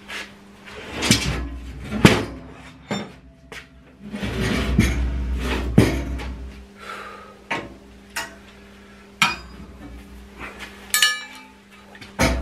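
Irregular clanks and knocks of steel on steel as a bar and G-clamps are worked against a scored steel plate to bend its edge, with one bright metallic ring about eleven seconds in.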